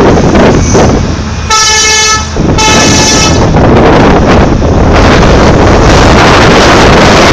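Two short blasts of a heavy mining machine's horn, each under a second long with a short gap between them, over loud wind noise on the microphone.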